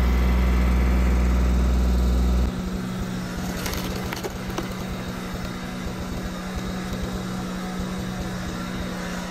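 A Kioti CK3510 compact tractor's diesel engine runs steadily at high revs, powering the hydraulics of a 22-ton RamSplitter inverted log splitter. For the first two and a half seconds a loud low hum covers it and then cuts off abruptly. A few sharp cracks come about four seconds in, as the wedge forces into an ash round.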